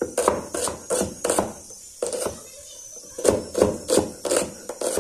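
A heavy cleaver chopping red onion on a wooden cutting board: sharp knocks of the blade hitting the wood, about three a second, in two runs with a pause in the middle.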